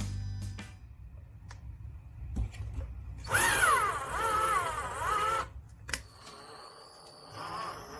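Power drill boring into a wooden stud behind drywall. The motor whine wavers up and down in pitch as the drill strains, once loudly about three seconds in and again more faintly near the end: it is struggling as the bit bites into the stud.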